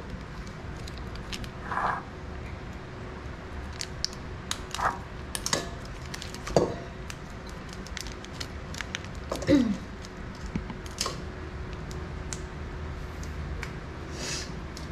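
Scattered small kitchen handling noises: scissors and a cloth bag of grated fresh coconut being handled and squeezed over a bowl to press out coconut milk. The noises come as soft rustles and sharp clicks, the loudest a click a little past six seconds and a short falling sound about nine and a half seconds in.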